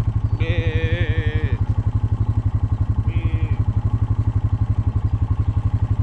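Four-wheeler (ATV) engine idling with a steady, fast low pulse. A calf bawls twice over it: a long call about half a second in and a short one about three seconds in.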